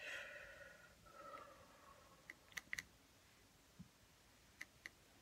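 Faint scraping for about two seconds, then a few light clicks in two little groups: a brush dabbing paint onto the textured painting board.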